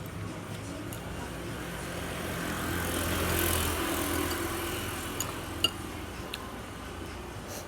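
A motor vehicle passing by: a low engine hum and road noise swell to a peak about three and a half seconds in, then fade away. A few light clicks are heard in the later part.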